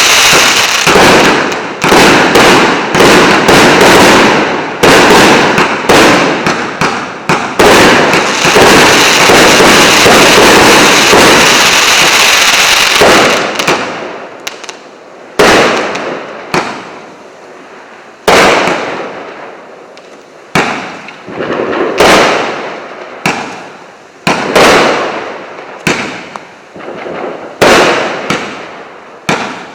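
Combination fireworks cake of 1.2-inch and 1-inch calibre firing. It goes off in a rapid, dense volley of shots and bursts for the first half, then slows to separate loud bangs about one a second or so, each trailing off as it fades.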